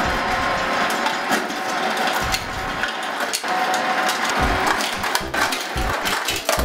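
Refrigerator door ice dispenser running: its motor whirring steadily while ice cubes clatter and knock into an overfull glass.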